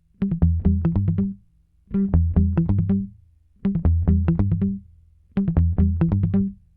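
Background music: a short phrase of quick notes over a bass line, played four times with brief pauses between.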